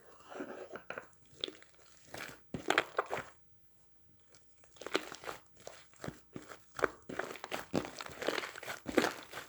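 Irregular crinkling and crunching, in bunches of quick crackly strokes with a short pause in the middle, as something crackly is squeezed or handled close up.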